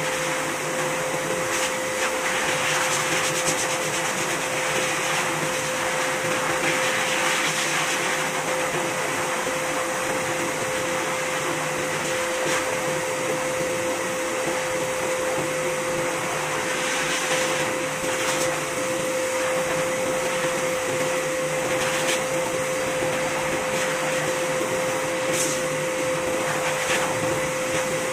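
High-velocity pet grooming dryer running steadily, its air stream blowing through a cat's coat to lift out loose undercoat: a constant rush of air with a steady whine.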